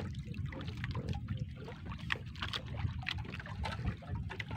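Wet fishing net being hauled by hand over the bow of a wooden outrigger boat, with water trickling and splashing off it and scattered knocks of net and rope on the hull, over a steady low rumble.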